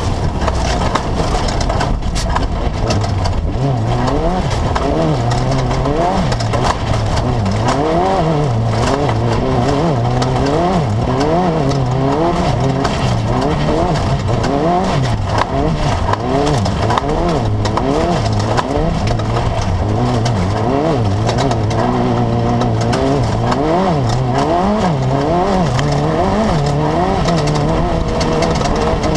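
Class 10 off-road race buggy's engine revving hard, its pitch climbing and falling back over and over as the throttle is worked over rough ground.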